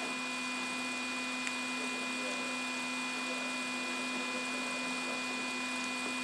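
Steady electrical hum with a faint click about a second and a half in.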